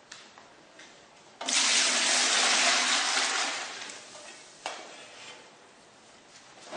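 Water poured into a container of salt to make brine: a loud rush of water starts about a second and a half in, runs for about two seconds and tapers off, followed by a single knock.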